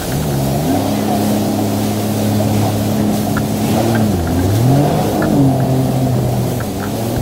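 Jet ski engine running at speed, its pitch dipping and climbing back a couple of times midway as the throttle is eased and opened again, over a steady rush of water and spray.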